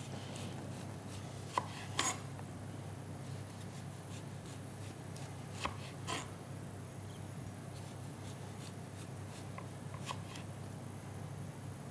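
Chef's knife slicing a lemon into rounds on a wooden cutting board: a few soft, widely spaced knocks as the blade reaches the board, over a faint steady hum.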